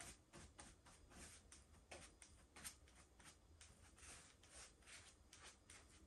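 Faint, quick brush strokes of a wide paintbrush across an epoxy resin tabletop, about three soft swishes a second.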